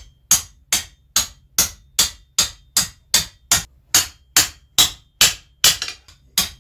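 Hand hammer striking hot steel on an anvil in a steady rhythm, about two and a half blows a second, each with a short bright ring, as the blacksmith cuts a knife's handle off over a cutoff hardy.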